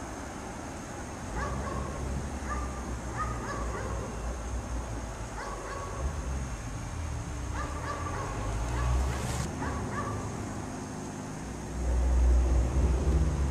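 A dog barking in short clusters of two or three barks, repeated several times. A low rumble, like a passing vehicle, swells near the end.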